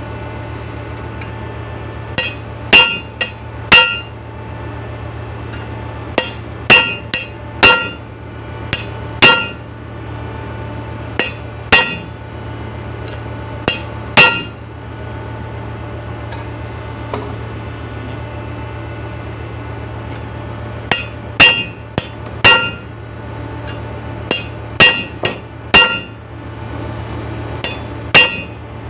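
Hand hammer striking steel with a ringing metallic note, in irregular bursts of two to six blows separated by pauses, over a steady low hum. The hammering is part of renewing the brake lining on a ship's mooring winch.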